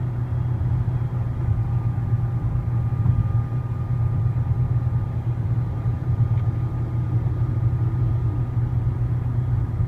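Inside a 2012 Nissan Altima at highway speed: a loud, steady low rumble of wind and road noise, with a faint, steady high-pitched whine buried in it. The owner believes the whine comes from a failing transmission.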